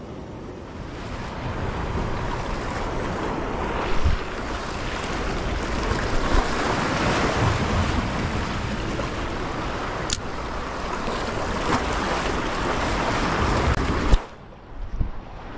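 Sea surf washing against shoreline rocks, with wind buffeting the microphone. A low knock about four seconds in and a sharp click about ten seconds in; the sound drops away abruptly near the end.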